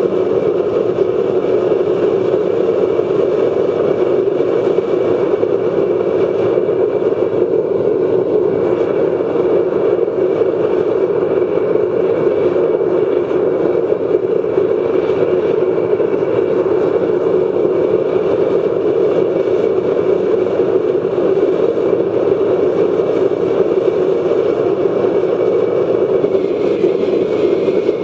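Waste oil drip burner burning on forced air from a 12-volt bilge blower: a steady, unchanging rush of flame and blown air.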